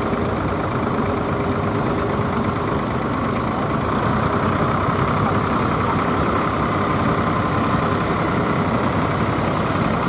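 Several vintage tractor engines running at low speed as the tractors drive slowly past, a steady rumble with a fast, even firing beat.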